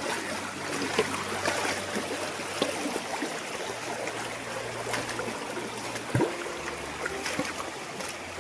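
Stream water running steadily, with a few scattered clicks and knocks over it, the sharpest about six seconds in.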